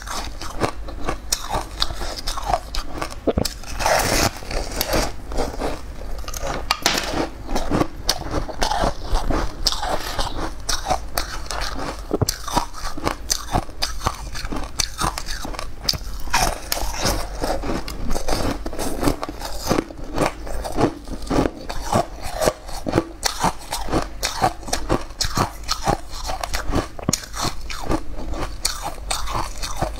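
Close-miked eating: a person biting into and chewing yellow-topped buns, with a steady stream of small, irregular crunching and crackling bites.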